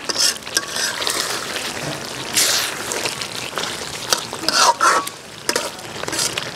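Metal spatula scraping and stirring thick beef curry in a metal pot, over a steady sizzle of the meat frying down in its own separated oil. Several scrapes stand out, the loudest about two and a half and five seconds in.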